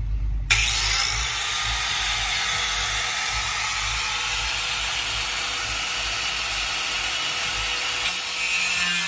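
Corded angle grinder cutting in abruptly about half a second in, then grinding steadily against steel, taking studs off a car's engine bay sheet metal.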